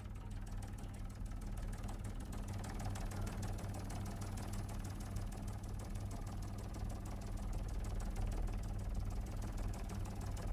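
Helicopter engine and rotor noise picked up inside the cabin: a steady drone with a fast, even chopping beat.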